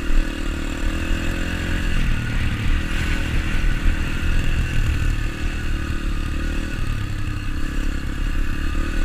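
Dirt bike engine running, a steady engine note that dips slightly in pitch and picks up again.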